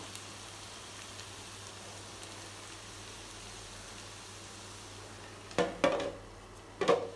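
Sliced onions and drumstick pieces sizzling steadily as they fry in a steel pan, stirred with a wooden spatula. Near the end come a few loud clattering knocks as a plate is set over the pan as a lid.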